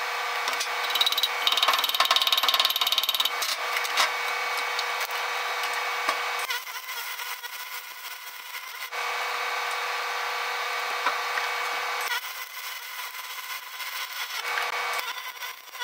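MIG welding arc crackling on a hot cast iron exhaust manifold, louder in stretches of a few seconds with softer spells between, over a steady hum.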